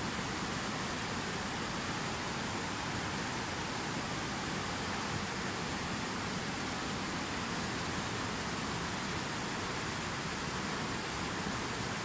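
Fast white-water river rushing over rocks in rapids, a steady unbroken rush of water.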